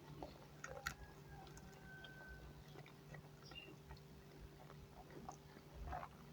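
Faint chewing and soft mouth clicks of someone eating, with one sharper click about a second in, over a low steady hum.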